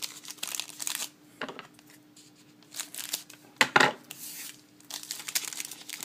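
A hockey card pack's wrapper being torn open and crinkled in several rustling stretches, with a thump just over halfway through.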